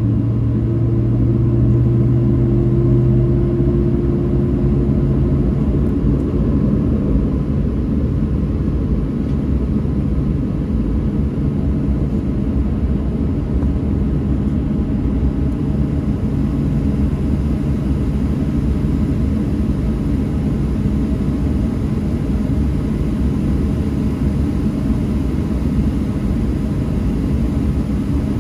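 Steady low rumble inside the cabin of a Boeing 737-700 on the ground: engine and cabin air noise heard from a window seat. A low hum over the rumble fades out about six seconds in.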